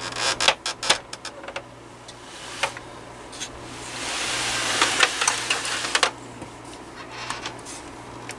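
Plastic housing of a Honeywell HW-690 window fan being handled: sharp clicks and knocks of the plastic casing and its tabs, then a rougher scraping rustle for about two seconds from roughly four seconds in as the fan is shifted and turned on the bench.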